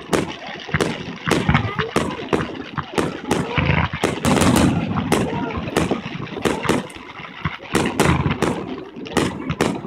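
Fireworks display: aerial shells bursting and crackling in a rapid, irregular run of bangs, a few every second.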